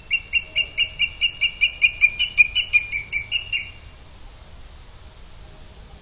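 Booted eagle calling: a fast, even series of about nineteen shrill notes, about five a second, that stops a little past halfway.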